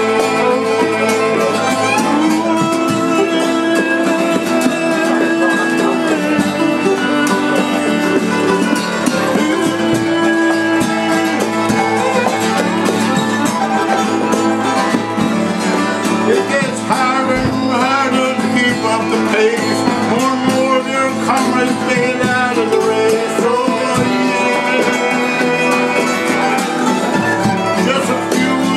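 Live acoustic folk tune played on fiddle, acoustic guitar and mandolin together, the fiddle carrying held melody notes over steady guitar strumming.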